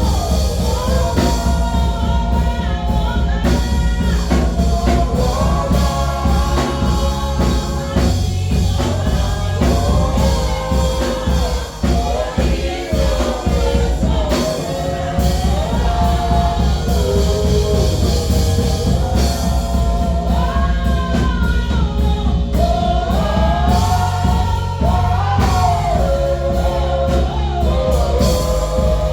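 Gospel choir singing with a loud band accompaniment. Heavy bass and drums run under the voices.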